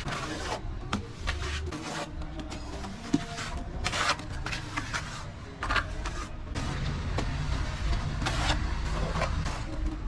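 Plastering trowel scraping over wet mortar in a series of short rough strokes, one or two a second, over a low rumble.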